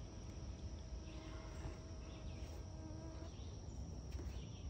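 Faint outdoor insect chorus: a steady, continuous high-pitched trill. Under it a faint low steady hum stops about three seconds in.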